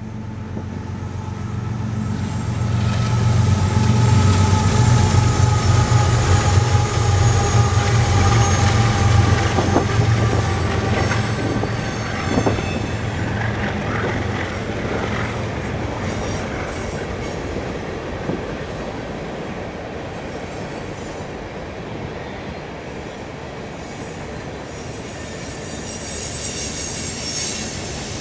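A CSX freight train passing. The diesel locomotives' low engine drone is loudest in the first ten seconds and then fades as the cars roll by. The cars keep up a steady high wheel squeal, with occasional knocks.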